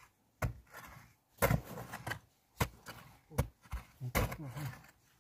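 Digging in a narrow earth tunnel: irregular knocks and scrapes in the soil, about one a second, with a few short low grunts about four seconds in.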